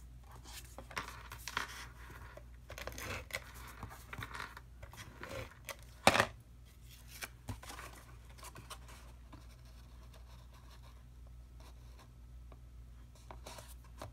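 Cardstock being handled and pressed onto a paper box by hand: scattered rustles, scrapes and light taps, with one sharp click about six seconds in.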